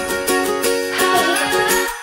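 Background music with plucked strings and a steady beat; a gliding note slides through about a second in, and the music drops out for an instant just before the end.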